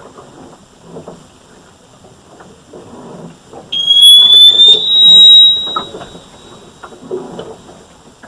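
A noise that sounds like a sonic weapon: a series of rough low pulses about once a second, then, about halfway through, a piercing tone that glides up in pitch and holds steady for about two seconds before fading.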